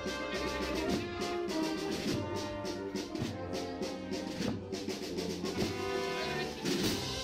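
Brass band music with trumpets and a steady drum beat, a processional march of the kind played for Andalusian Holy Week processions.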